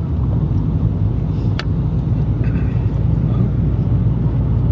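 A car running, giving a steady low rumble of engine and road noise.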